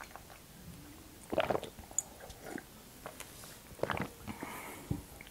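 Close-miked swallows of tea from a mug: several short gulps about a second apart.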